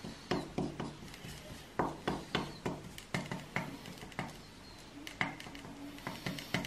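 Metal spoon rubbed and pressed over a leaf on an inked plate: a series of short scrapes and clicks, a few a second, with brief pauses. It is the leaf being burnished against the ink to take up ink for a plant monotype.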